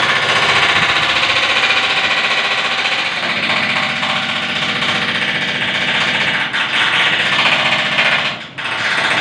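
Air conditioner unit running close by with a loud, rapid mechanical rattle. It drops away briefly near the end.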